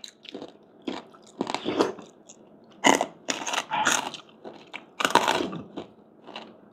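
Chewing and crunching of crispy fried pork skin, in irregular bites, the loudest crunches about three and five seconds in.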